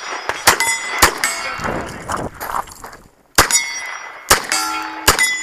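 Five revolver shots at steel targets, each followed by the bright ring of the struck steel plate. The first two come about half a second apart, then there is a pause of about two seconds before the last three.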